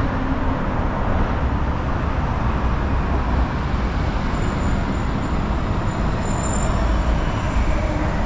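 Steady roar of road traffic crossing the Queensboro Bridge, a continuous rumbling noise with no breaks.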